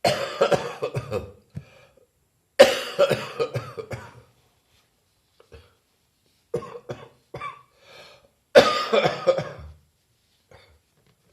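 A person coughing in four fits of rapid, harsh coughs, with short pauses between. It is a lingering cough left over from a chest infection weeks earlier.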